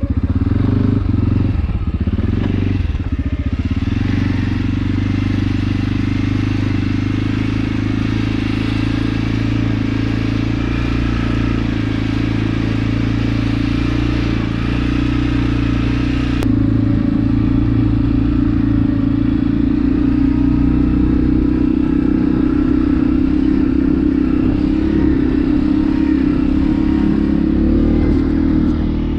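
CFMoto CForce 450L ATV's single-cylinder engine running steadily under way, with a sudden shift in the sound a little past halfway.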